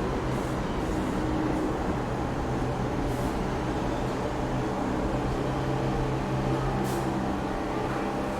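New York City subway station ambience: a steady low rumble with a low mechanical hum, and two brief faint hisses, one near the middle and one near the end.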